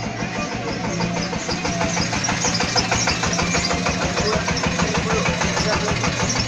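A small engine or motor running steadily with a rapid, even beat and a low hum.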